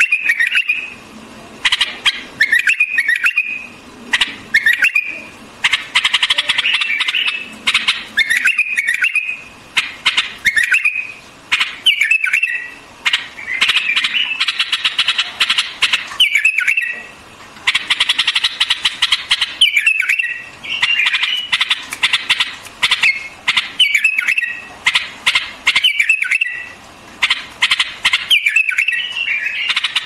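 White-eared bulbul singing: short, warbled phrases repeated every second or two, with stretches of rapid, rattling chatter between them.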